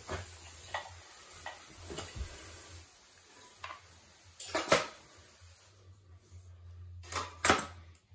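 Carpet seaming irons and metal hand tools being handled on the floor: a few light taps, then two short bursts of loud metallic clatter, about four and a half and seven seconds in.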